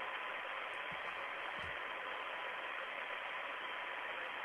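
Steady static hiss on the Soyuz spacecraft's air-to-ground audio link, muffled, with a faint steady tone.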